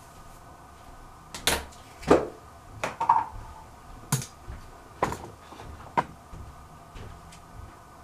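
Irregular knocks and clacks of hard objects being handled and set down, about eight of them, the loudest about two seconds in.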